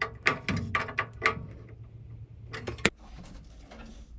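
Sharp clicks and knocks of metal parts being handled and fitted while a gas water heater's burner assembly, pilot tube and igniter are put back in place: a quick run of clicks in the first second and a half and another cluster near three seconds. A low steady hum underneath cuts off at about three seconds.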